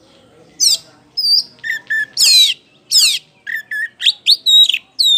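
Oriental magpie-robin (kacer poci) singing loudly, starting about half a second in: a fast, varied run of whistled phrases mixing quick sweeping chirps with short clear whistles at two or three pitches.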